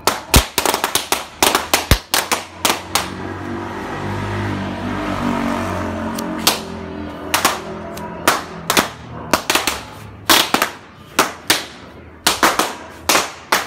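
Firecrackers going off: many sharp bangs in quick, irregular runs, with a steadier, denser stretch in the middle.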